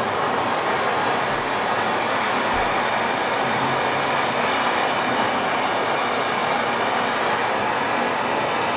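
Handheld gas torch burning with a steady hiss, its flame on a brass seam to sweat the tinned pieces together with solder.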